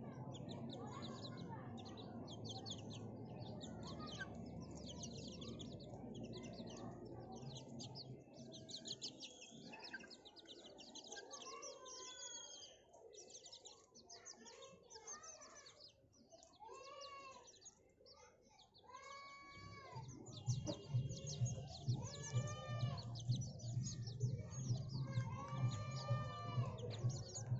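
A flock of young white broiler chickens peeping and calling, with a constant patter of high chirps and, from about halfway in, several louder arching calls. Near the end, a low pulsing hum, about two beats a second, runs under them.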